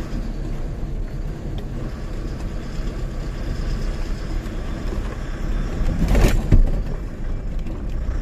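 Tata 1512 truck's diesel engine and road noise heard from inside the cab as it pulls out onto the road, a steady low rumble. A brief, louder noisy surge comes about six seconds in.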